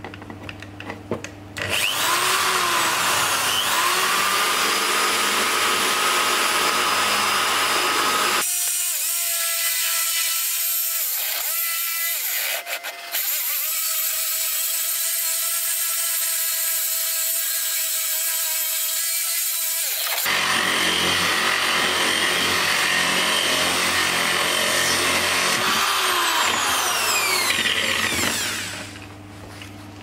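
Corded electric drill with a hole-cutting bit boring a cable hole through a wooden drawer front. It spins up about two seconds in, runs steadily with a short dip in the middle, and winds down near the end.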